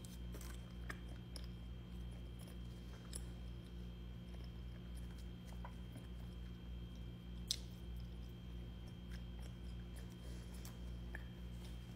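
A person chewing a mouthful of cheese-covered fries, soft wet chewing sounds close to the microphone, with scattered small clicks and one sharper tick about seven and a half seconds in, over a steady low hum.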